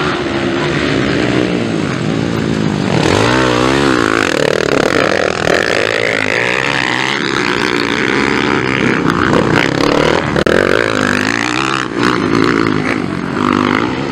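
Several small four-stroke dirt bikes, Honda CRF 230 type, racing, their engines revving up and down over and over as they climb and jump, with a few bikes sounding at once.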